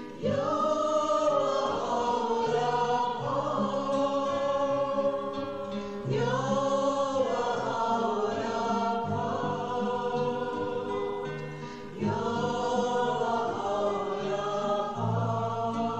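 Choral music: a choir singing long held phrases over low bass notes, with a new phrase starting about every six seconds.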